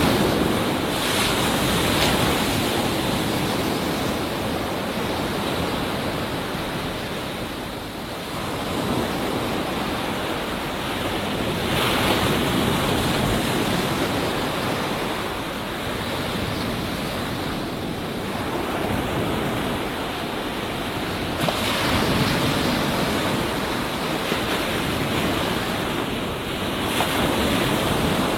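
Ocean surf: waves breaking and washing up a beach in a continuous rush of white water. The rush swells as a new wave breaks near the start, again about twelve seconds in, and twice more near the end.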